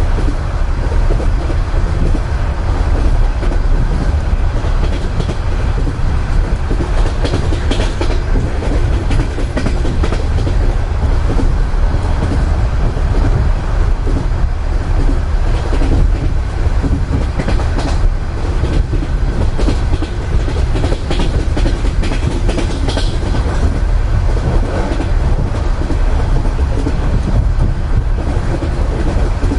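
Russian Railways passenger carriage wheels clacking over the rail joints under a steady low rumble, with occasional sharper clacks, heard from inside a sleeping compartment.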